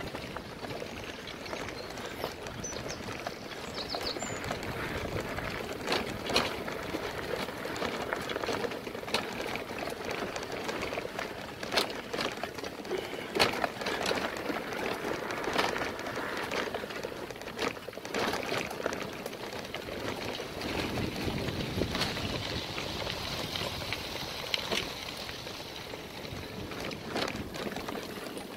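A loaded cargo bike and its trailer rolling over a rough, bumpy gravel track: steady tyre crunch with frequent irregular knocks and rattles from the frame and load.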